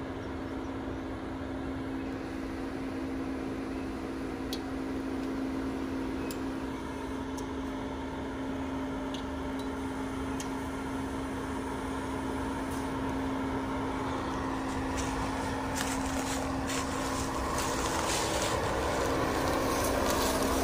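Jeep engine running steadily at low speed with a constant hum while crawling over a trail. Clicks and crackles from the tyres on rock and gravel grow denser and louder over the last few seconds.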